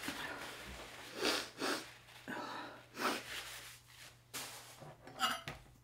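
A person sniffing several times in short, noisy breaths, over a faint steady hum.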